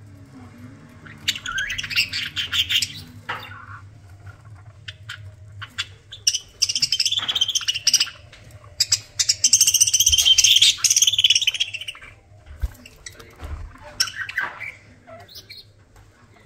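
Pet budgerigars chattering and warbling in several bursts, loudest a little past the middle, with quieter chirps and ticks between them.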